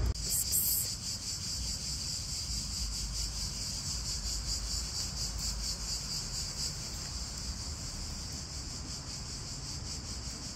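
Crickets trilling in a steady, high, continuous chorus over a low background rumble.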